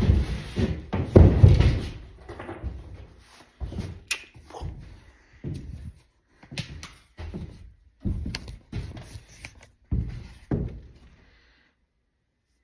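Plywood floor sheathing over joists being pried and knocked loose: a run of hollow wooden thuds and knocks, heaviest in the first couple of seconds, then irregular knocks every half second to a second that stop near the end.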